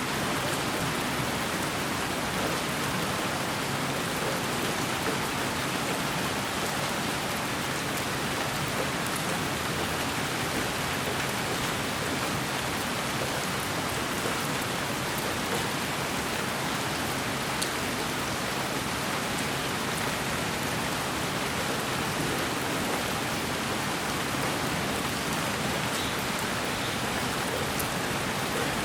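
Steady, unchanging white-noise hiss with a rain-like texture and faint scattered ticks in the highest pitches.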